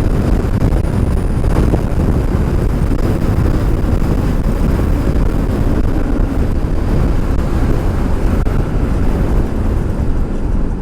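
Steady, loud rumble of wind and road noise picked up by a helmet-mounted microphone on a moving electric motorbike.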